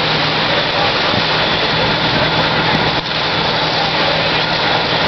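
Fire apparatus engines running steadily at the fireground: a loud, constant drone with a low hum and a wash of noise, dipping briefly about three seconds in.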